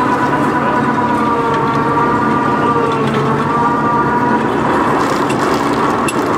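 Boom truck's diesel engine running steadily, with a high whine that wavers slightly in pitch as it drives the hay-lifting winch.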